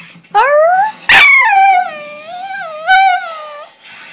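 Jack Russell terrier howling: a rising note, then one long wavering howl that sinks slowly in pitch and fades out near the end.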